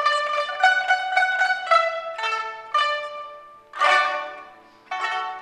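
Ensemble of pipas (Chinese lutes) playing a lively melody in quick plucked notes. A little under four seconds in, a loud plucked chord rings out and fades for about a second before the plucking resumes.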